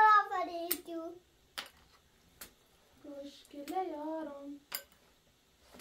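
A child singing two short, high, held phrases, with a pause between them broken by a few sharp clicks.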